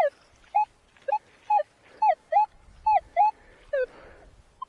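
Minelab Manticore metal detector giving short, bending beeps over a buried target, about nine of them, mostly in pairs, as the coil is swung back and forth: a strong, repeatable signal.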